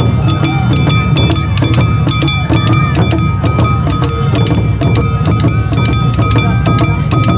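Awa odori hayashi band playing live: taiko drums and clanging kane gongs keep a brisk, even beat, with shamisen and a long held high note from a shinobue flute over the top.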